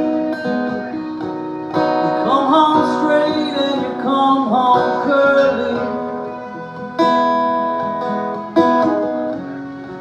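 Acoustic country band playing an instrumental passage between sung lines: acoustic guitar strumming chords while a fiddle plays a melodic fill with sliding notes. New chords come in strongly about two seconds in and again about seven and eight and a half seconds in.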